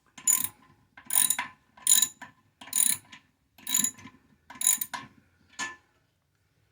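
Socket ratchet clicking in about seven short strokes, roughly one a second, as it tightens the nut on a toilet's tank-to-bowl bolt; it stops about six seconds in.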